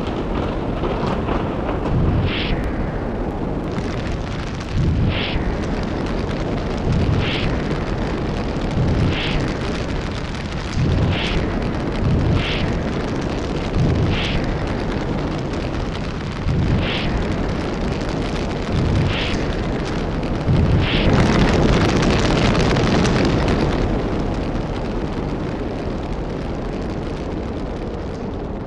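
Film sound effect of a roaring pillar of fire: a steady rumbling roar punctuated by about ten sharp blasts, roughly every two seconds, swelling loudest about twenty-one seconds in and then easing off.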